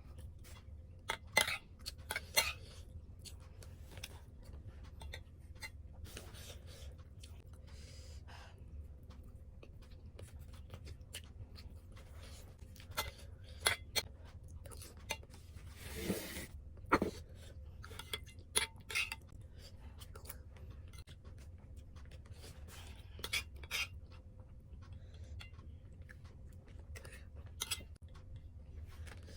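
Eating sounds: chewing and scattered sharp clicks and clinks of a utensil against a plate, over a steady low hum.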